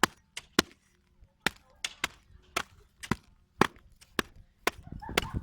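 A blade chopping with about a dozen sharp, separate strokes at an uneven pace, roughly two a second.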